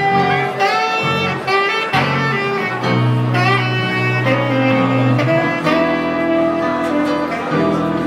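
Live jazz: a saxophone plays the melody over upright double bass and electric guitar.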